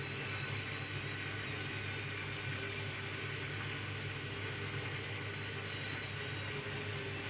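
Hoover washing machine running steadily in an intermittent spin on a Cotton 30° wash: an even motor hum with faint steady whining tones above it, the speed holding constant.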